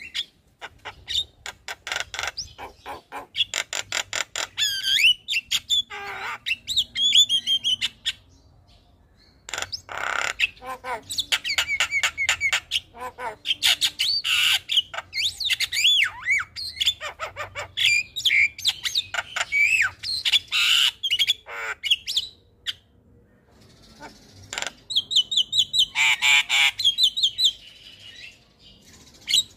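Javan myna singing a long, varied song of rapid clicks, harsh chatter and gliding whistled notes, with two short pauses.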